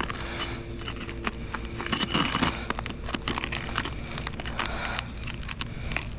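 Asphalt roof shingles being pried apart, the sealed tab resisting and releasing in a dense run of small crackles and gritty scrapes. The shingle is very difficult to separate.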